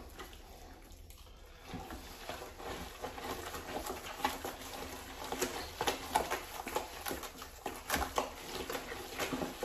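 A thick, wet mixture of ground turkey, mashed sweet potato and vegetables being stirred in a large pot: irregular soft squelches and small scrapes, starting about two seconds in.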